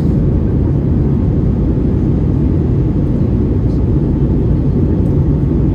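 Steady low roar inside the cabin of an Airbus A321neo: the noise of its Pratt & Whitney PW1100G geared turbofan engines and the airflow, with no change in pitch or level.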